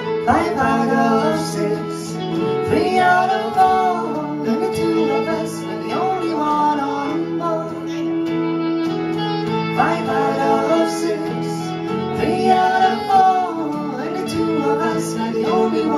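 Live band music: a woman singing over a held keyboard chord, a strummed acoustic-electric guitar and a reed woodwind.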